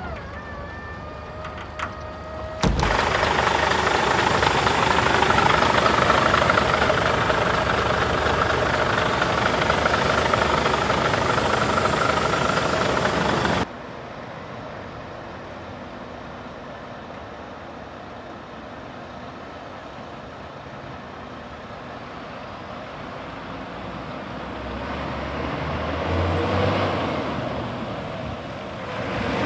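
A steady whine for the first few seconds, then a loud steady mechanical noise that starts and stops abruptly. After that, a Scania 94D 260 truck's diesel engine runs as the truck drives towards the listener, growing louder over the last few seconds.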